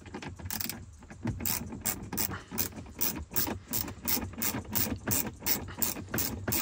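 Hand ratchet with a 7 mm socket clicking in a quick even rhythm, about four clicks a second, as it backs out a small dash-frame bolt.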